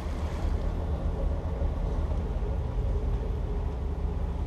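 Twin 7.4-litre (454 cu in) GM V8 inboard engines of a Sea Ray 330 Sundancer running slowly in gear, a steady low drone.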